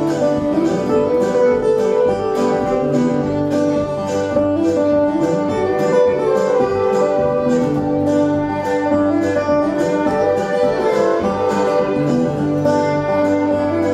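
Live band music: long held cello notes over a steady rhythmic string accompaniment of about three strokes a second.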